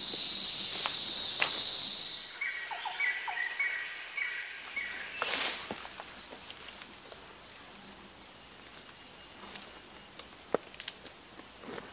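Rainforest insects droning in steady high-pitched tones; the chorus changes about two seconds in, a short run of evenly spaced chirps follows, and a couple of sharp clicks come near the end.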